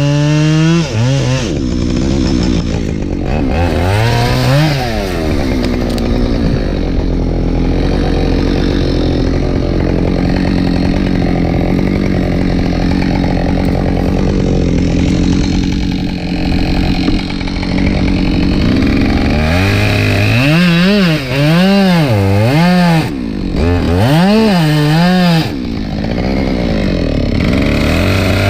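Husqvarna 572 XP two-stroke chainsaw cutting firewood: its pitch drops as the chain bites into the wood and holds lower under load for a long stretch, then swings up and down several times near the end as the throttle is worked.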